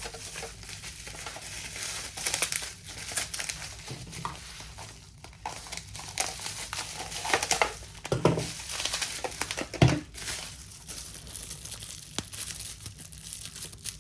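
Plastic packaging crinkling and rustling as it is handled and unwrapped, with a couple of louder knocks past the middle.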